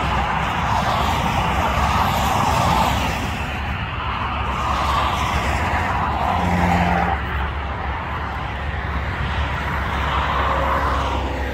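Road traffic: vehicles passing one after another, their tyre noise swelling and fading several times over a steady low rumble.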